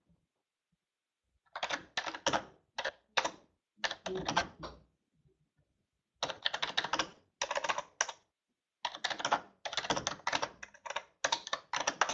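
Typing on a computer keyboard: quick runs of keystrokes in several bursts, with short silent pauses between them.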